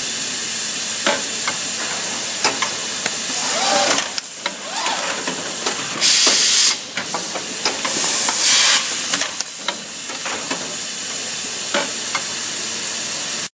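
Automatic bag-making machine running: a steady hiss with scattered sharp mechanical clicks, and two louder bursts of air hiss about six and eight seconds in from its pneumatic air lines.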